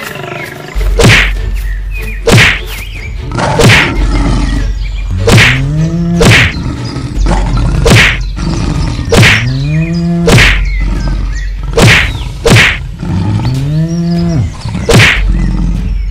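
Cartoon fight sound effects: about a dozen loud whacks of blows landing, roughly one a second, while a cow moos three times over a low rumble.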